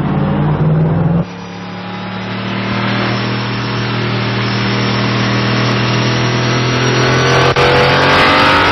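Corvette C5-R race car's 7-litre V8. It gives a loud, deep note for about a second, then the sound switches to the engine heard from an onboard camera on the car, pulling steadily with its pitch slowly rising and growing louder as the car accelerates, with a short click near the end.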